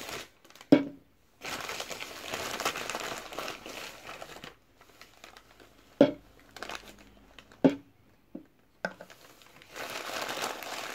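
Brown kraft paper bag crinkling and rustling as it is handled and opened, in two long stretches, with four sharp knocks in between, the first the loudest.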